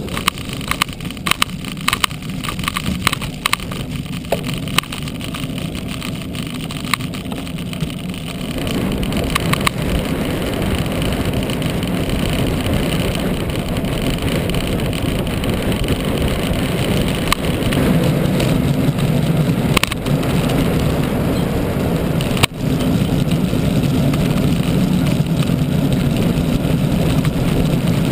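Wind rushing over the microphone of a bicycle-mounted camera at riding speed, with road and tyre noise. For the first eight seconds or so there are frequent small rattling clicks; after that the wind noise grows louder and steadier.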